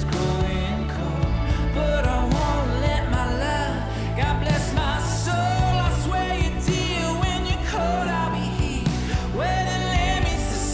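Background song with a sung vocal over bass and drums.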